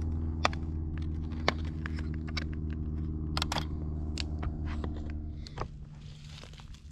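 An engine running steadily, with scattered clicks and knocks, until it cuts off about five and a half seconds in, leaving a fainter steady hum.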